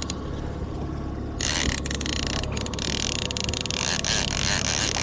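Boat engine running steadily under a rushing wash of wind and water, the rush growing louder about a second and a half in.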